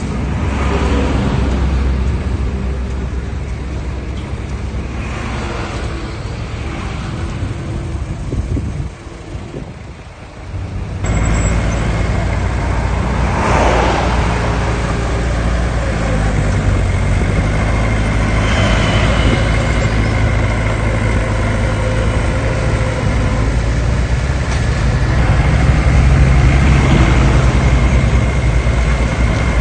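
Heavy diesel earthmoving machinery (dump trucks and a bulldozer) running with a steady low engine hum. The sound drops away about nine seconds in and comes back stronger about two seconds later.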